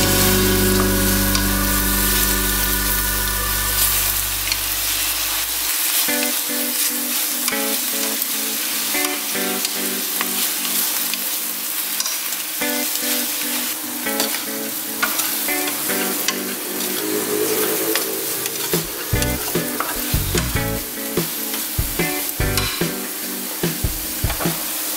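Thin ginger slices cooking in boiling sugar syrup in a nonstick pan, sizzling steadily, with background music playing.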